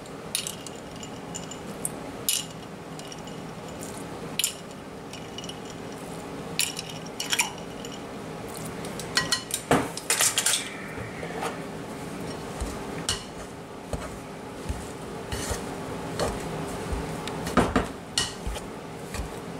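Scattered clinks and scrapes of a measuring spoon and a metal pastry blender against a mixing bowl as cold water is worked into pie dough, coming more often in the second half. A faint steady hum sits beneath.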